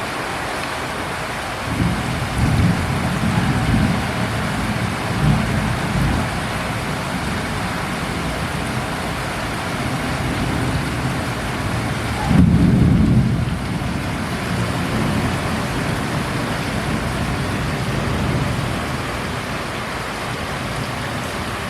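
Heavy rain falling steadily, with two spells of low rumbling: one starting about two seconds in and a stronger one starting suddenly around twelve seconds in, each lasting a few seconds.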